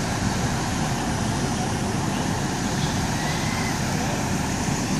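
Fire engine's diesel engine idling, a steady, unbroken noise.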